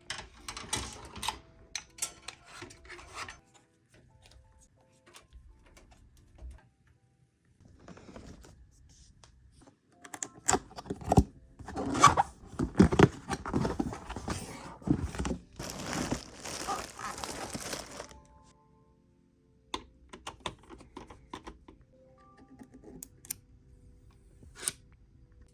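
Irregular rustling, crinkling and sharp clicks of packaging and computer parts being handled, loudest and densest for several seconds in the middle.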